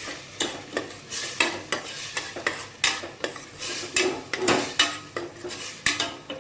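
Metal ladle stirring and scraping in a pressure cooker in quick, uneven strokes, mixing spice powders into hot oil, with a light sizzle of the masala frying.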